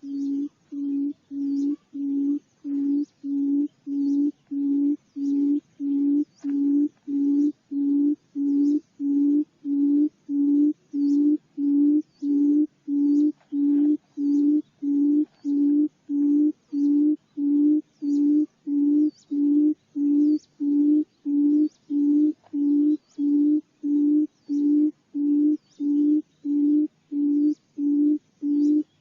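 Female barred buttonquail giving its low hooting call: a long, unbroken series of evenly spaced, hollow low hoots, about three every two seconds.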